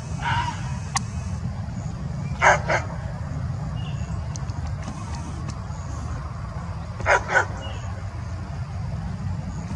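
Short, high barks from a dog or fox (a canid) facing off in the field, given in quick pairs, two barks about a quarter-second apart, about two and a half seconds in and again about seven seconds in, with a fainter call at the start. A steady low rumble runs underneath.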